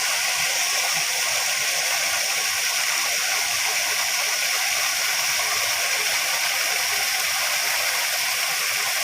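Waterfall: falling water making a steady, even hiss.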